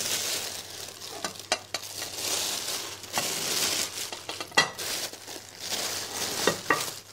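Thin plastic bag rustling and crinkling as it is pulled and smoothed over an upturned china plate, with a few sharp clicks along the way.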